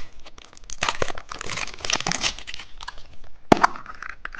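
Plastic candy wrapper crinkling and tearing as a cookie-egg surprise candy is opened by hand, with a sharp snap about three and a half seconds in.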